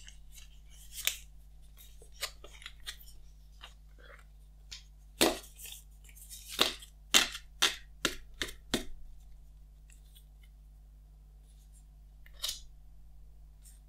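Stiff paper and card rustling and snapping as the iPhone's leaflets and Apple sticker card are handled, with a quick run of sharp clicks and rustles in the middle and one more near the end.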